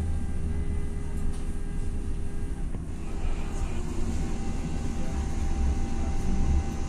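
Stadler Citylink tram-train running between stops, heard from inside the passenger saloon: a steady low rumble from the running gear with a faint, even hum of tones above it.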